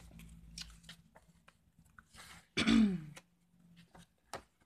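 Paper journal pages turned and handled, with soft rustles and clicks. A throat clearing about two and a half seconds in, falling in pitch, is the loudest sound.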